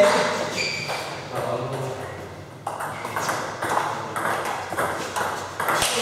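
Table tennis ball clicking sharply off the table and rubber-faced bats, a few light bounces and then strikes as a rally gets under way, with the ring of a large hall.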